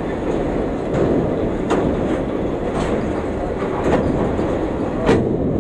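Train passing at close range: a steady rumble of wheels on the rails, with sharp clacks over the rail joints roughly once a second.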